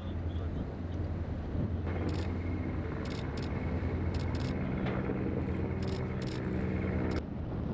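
A boat's engine running steadily under way on the water, a low rumble with a steady hum over it. The hum comes in about two seconds in and cuts off suddenly near the end.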